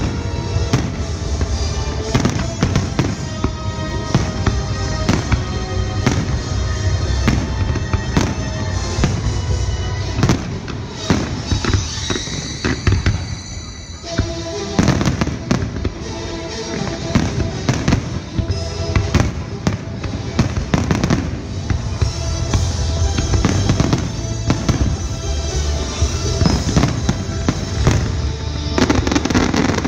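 Aerial firework shells bursting one after another in a dense run, with music playing throughout. The bursts ease briefly about twelve seconds in, then come thick again.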